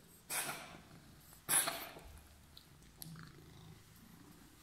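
Domestic cat purring faintly and steadily. Two short, loud, airy bursts, about a third of a second and a second and a half in, stand out above the purr.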